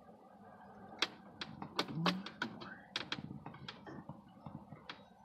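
A run of sharp, irregular clicks and knocks as plastic dashboard trim and clips are handled and pried, thickest about two to three seconds in.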